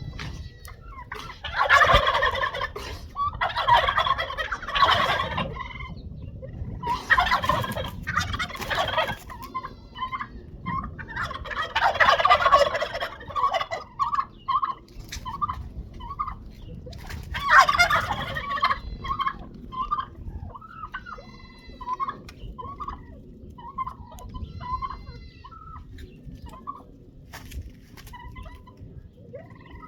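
Farmyard fowl calling: five loud rattling calls in the first twenty seconds, with short repeated chirping notes between and after them.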